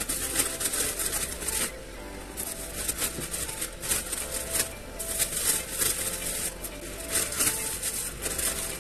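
Plastic snack-packet strips rustling and crinkling in bursts as they are handled and hung up.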